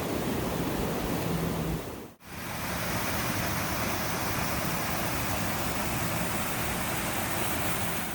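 Waterfall running, a steady full rush of falling water. It dips out briefly about two seconds in and comes straight back.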